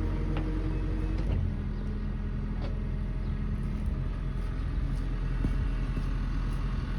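1968 Chevrolet K20 pickup truck's engine running as it drives at low speed, with a change in engine note about a second in.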